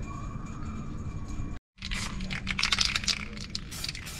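Aerosol spray-paint can hissing in a series of short bursts, starting about halfway through after a brief dropout; before that only a low background hum.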